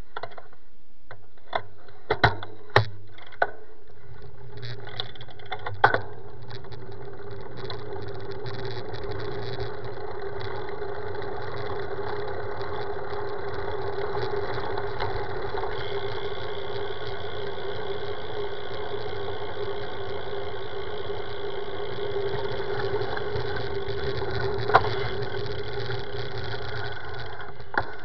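Steady hum and rumble of a road bike rolling on asphalt, picked up through a handlebar-mounted camera. There are a few sharp knocks in the first six seconds and one more near the end.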